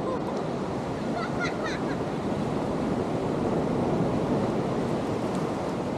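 Ocean surf washing onto a beach: a steady, continuous rush that swells a little midway, with faint distant voices about a second in.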